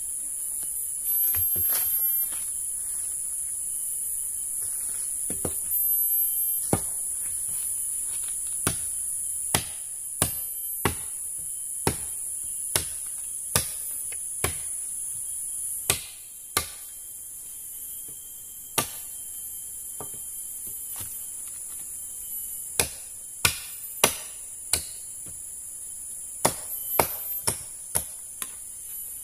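Sharp chopping strikes on wood. They come in a steady run of about one a second, then a few quick groups of strikes later on, over a constant high buzz of forest insects.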